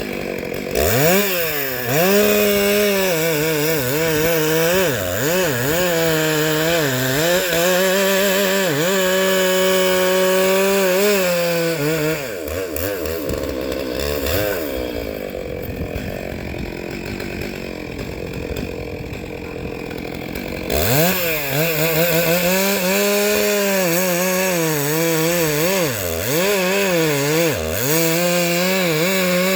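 Two-stroke chainsaw running at high revs, its pitch dipping and recovering again and again as it bogs under load in wood. About twelve seconds in it drops to a lower, quieter running, then revs back up some nine seconds later and carries on with the same dips.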